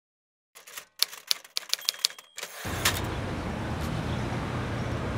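A quick run of about ten sharp typewriter clacks, a title-card sound effect as the caption is typed out. From about halfway it gives way to steady outdoor city ambience with a low rumble.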